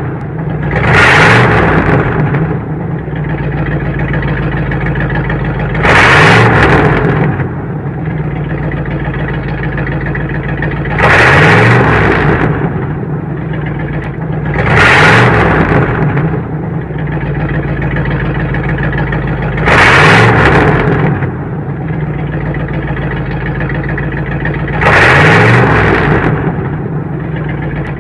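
Modified car's engine idling, revved hard about every five seconds, seven times, each rev rising briefly in pitch and dropping back to idle.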